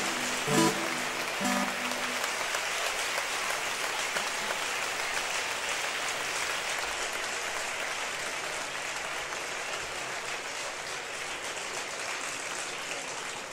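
Concert audience applauding steadily, the applause slowly dying down near the end. A few plucked acoustic guitar notes sound in the first couple of seconds.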